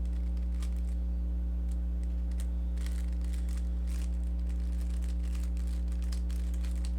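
Rubik's cube being turned quickly through an OLL algorithm: faint, irregular plastic clicks of the layers snapping round. A steady electrical hum runs underneath and is the loudest sound.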